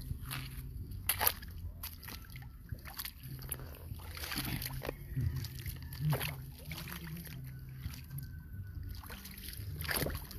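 Feet wading through shallow tidepool water among rocks: irregular splashes and sloshing.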